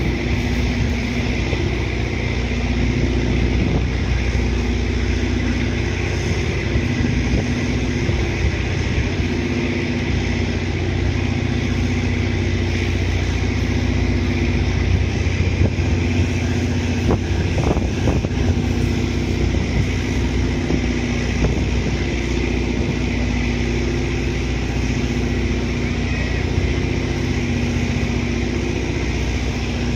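Steady low mechanical engine drone, with a hum in it that swells and fades every couple of seconds.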